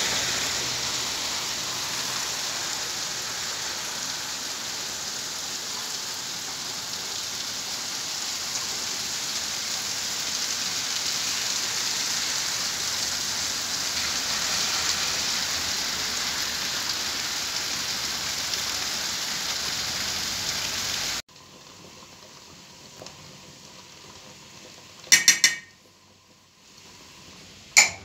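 Steady rain falling on rooftops and a street, an even hiss that cuts off abruptly about 21 seconds in. Then a quieter stretch with two sharp metal clinks of cookware near the end.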